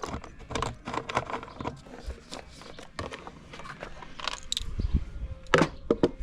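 Irregular clicks and knocks of hand tools on screws and plastic body panels as a motocross bike's bodywork is unbolted, with a low rumble starting about five seconds in.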